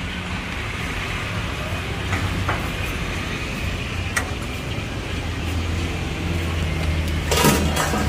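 Steady low rumble of traffic and stall noise, with a few light clinks of cookware. A louder metallic clatter comes near the end as the aluminium saucepan is set down on the gas burner.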